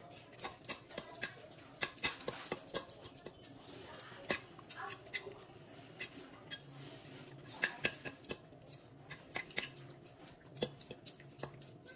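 Two metal forks clicking and scraping against a slow cooker's crock as cooked chicken is pulled apart in its juices: many quick, irregular clinks.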